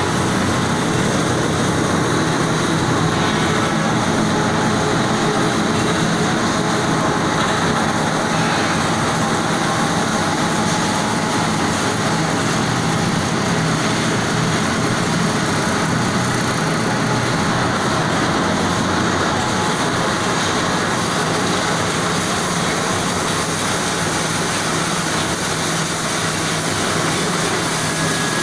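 Wire drawing machine running: a steady, even mechanical noise of its motor and turning drawing drum that does not change in pace.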